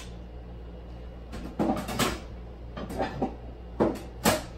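Kitchen wall cabinet door opening, then a string of sharp knocks and clinks as plates are handled inside the cabinet. The sounds begin about a second and a half in.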